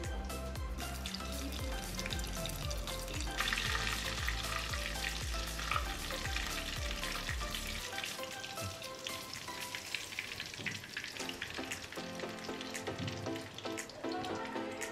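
Breadcrumb-coated chicken balls deep-frying in hot oil, a dense steady crackle and sizzle, with background music underneath.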